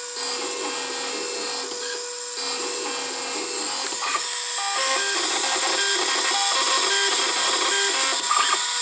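LPKF ProtoMat 91S circuit-board milling machine running: its high-speed spindle, set to 30,000 RPM, whines steadily as a 0.5 mm two-flute carbide bit cuts the copper, while the head's drive motors add lower tones that jump in pitch every fraction of a second as it moves along the traces. It grows louder about halfway through.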